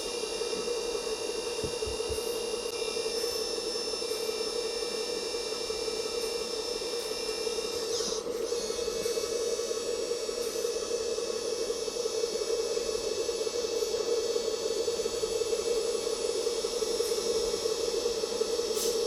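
Remote-control hook-lift (roll-on/full-unload) model truck running with a steady, unchanging hum, with a brief sweep about eight seconds in.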